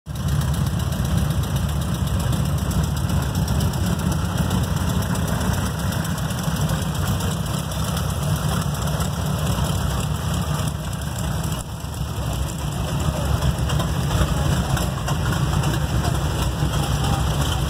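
Engine of a century-old, pre-WWI race car idling with a steady, loud low rumble.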